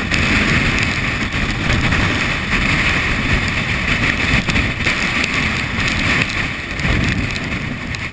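Wind buffeting the microphone of a body-worn action camera: a loud, steady rumble and hiss.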